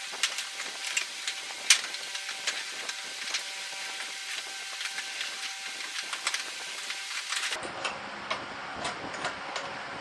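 Red PEX plastic tubing being fed by hand into a coil, with irregular light clicks and knocks as the tube taps against the wooden frame and dowel supports, one louder knock a little under two seconds in, over a steady hiss.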